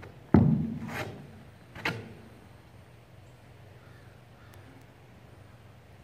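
A horse stepping off a hollow plastic pallet platform: a loud knock of a hoof on the pallet, then two lighter knocks about a second apart.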